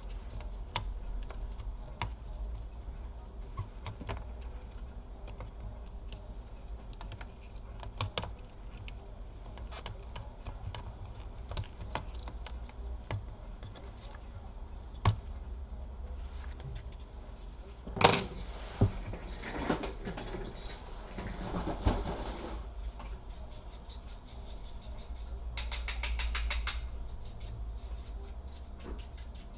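Small clicks and taps of hand tools and plastic parts on an opened laptop's internals, over a low steady hum. About 18 seconds in there is one louder knock, followed by a few seconds of scratchy rustling.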